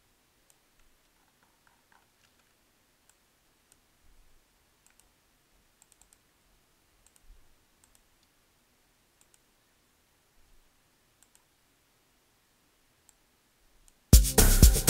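Faint, scattered computer mouse clicks over near silence. Near the end an AfroTech house beat with drums starts playing back suddenly and loudly.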